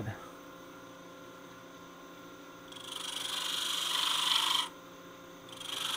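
Wood lathe running steadily while a pyramid point tool cuts small V-grooves into spinning spalted maple. A hissing cut lasts about two seconds from a little before the middle, stops briefly, and a second cut begins near the end.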